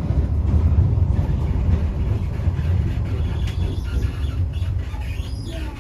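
Tram running on its rails, heard from inside the car as a steady low rumble that grows gradually quieter toward the end.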